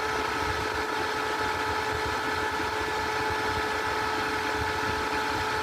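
AMEIKO desktop portable air conditioner fan running on high speed: a steady motor hum holding a fixed-pitch whine over the rush of air from the blower.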